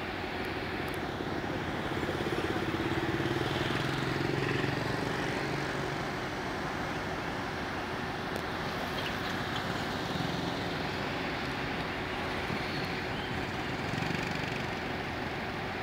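Street traffic with motor scooters riding past. The scooter engines hum louder a couple of seconds in and again near the end, over a steady traffic noise.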